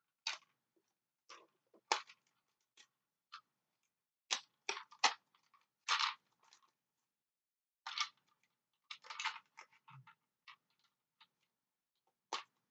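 Packaging being handled and unwrapped: irregular crinkling crackles and clicks of plastic and cardboard, in short clusters with pauses between.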